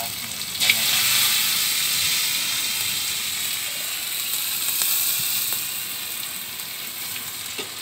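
Egg frying in hot oil in a steel wok: a sizzling hiss with crackle that jumps up about a second in and then slowly dies down.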